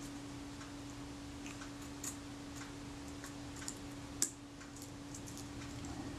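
Faint, scattered small ticks and taps of a scalpel picking at stuck leatherette on a metal camera body, with one sharper tick about four seconds in. A steady low hum runs underneath.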